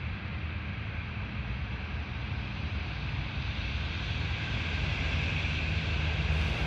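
A boat's motor running steadily under wind noise on the microphone, slowly getting louder.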